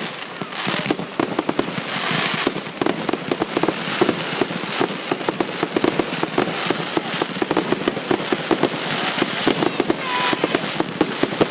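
Fireworks display going off in a rapid, continuous barrage: dense overlapping bangs and crackles with no break.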